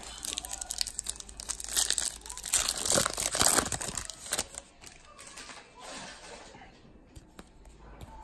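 Baseball card pack wrapper crinkling and tearing as it is ripped open, loudest around the middle, then dying down to soft handling of the cards.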